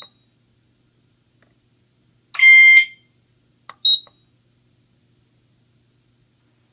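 Pyrotronics MTL MultiTone horn, wired as a single-stroke chime, sounding one half-second pulse of a steady high tone about two seconds in: one stroke of a fire alarm panel's coded-zone signal. A click followed by a very short, higher beep comes right at the start and again about four seconds in.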